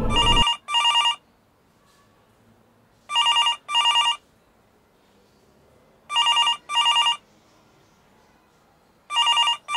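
Landline telephone ringing with an electronic trilling double ring, four pairs of rings about three seconds apart, left unanswered.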